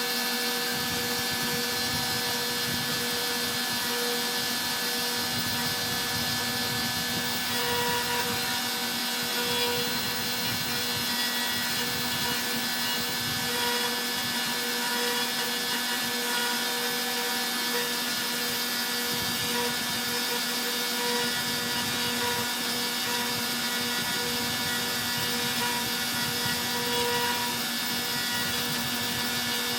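Stepcraft M1000 CNC router running steadily, its spindle whining while a V-bit carves into wood.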